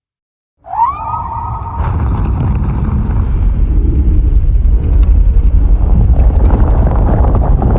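Custom Evolved Godzilla monster sound effect: after a brief silence, a short rising, wavering cry breaks into a loud, sustained low rumble that swells about two seconds in and holds.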